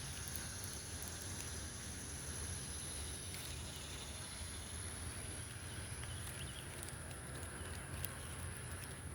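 Steady outdoor background noise with a faint, steady high whine and a few faint ticks; no distinct event stands out.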